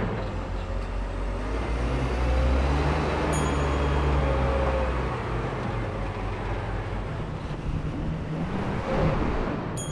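Diesel engine of a Case 821F wheel loader running as the machine drives over the paving, a steady low drone that eases about halfway through as the loader moves off.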